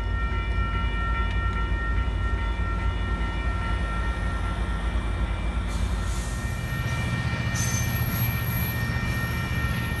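Amtrak Pacific Surfliner passenger train at the platform: a steady low rumble with several steady high-pitched tones over it, and a hiss that comes in about six seconds in.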